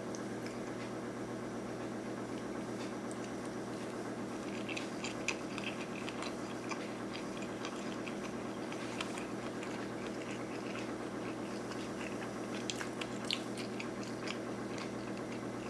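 A person chewing a mouthful of chopped scallop sushi roll, with soft scattered mouth clicks in a few clusters. A steady hum runs underneath.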